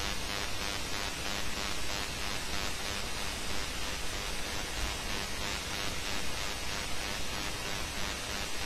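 Steady hiss of background recording noise. No distinct clicks from the pliers or rings stand out above it.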